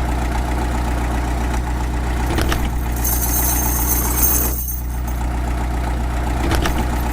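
Engine idling steadily with an even low hum. A thin high whine joins for about a second and a half around the middle.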